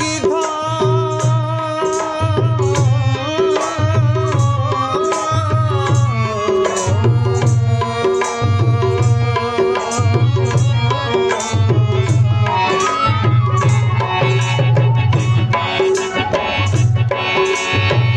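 Tabla playing a steady repeating rhythm with deep bass-drum strokes, under the held chords of a harmonium and a wavering bamboo flute (bansuri) melody, as accompaniment to an Urdu ghazal.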